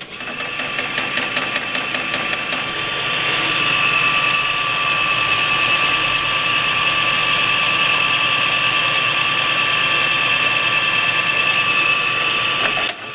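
A 13 x 40 inch geared-head metal lathe runs under power with its lead screw driving the carriage in reverse. It gives a steady gear whine that builds over the first few seconds and cuts off just before the end, and it is a little noisy.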